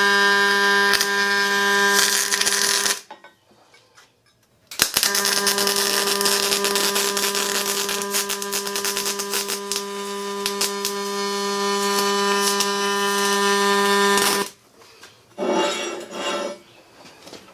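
MIG welding arc from a Miller Multimatic welder laying beads: a steady buzzing hum with fine crackle. It runs for about three seconds, stops, then after a short pause runs again for about ten seconds and cuts off suddenly. Near the end there is a brief clatter.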